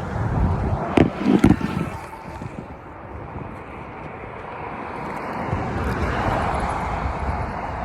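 Outdoor traffic noise with wind on the microphone: two sharp knocks about a second in, then a passing vehicle that swells and fades.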